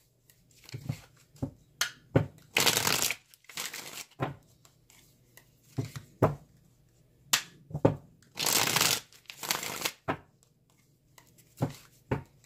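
Tarot cards being shuffled by hand in several short bursts, with light taps and clicks of the deck in between.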